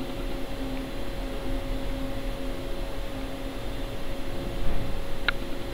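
Indoor room tone: a steady low rumble with a constant hum, like ventilation or air conditioning. A couple of faint short high chirps come about five seconds in.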